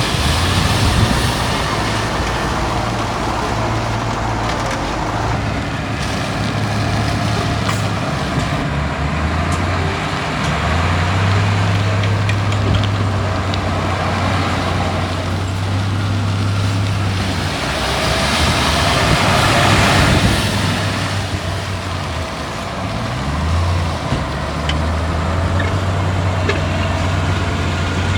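Heavy earthmoving machinery's diesel engine running continuously, its low hum shifting a little in pitch as engine speed changes, with a louder stretch about two-thirds of the way through.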